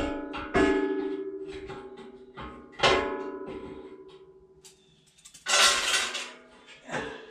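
A homemade steel woodstove and its stovepipe clanking as they are handled. Each knock rings on with a metallic tone that dies away slowly: one at the start, one about half a second in, and a louder one nearly three seconds in. About five and a half seconds in comes a rough scraping of metal.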